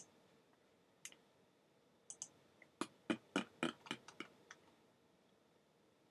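Computer mouse clicking: a few single clicks, then a quick run of about seven clicks, around four a second, in the middle.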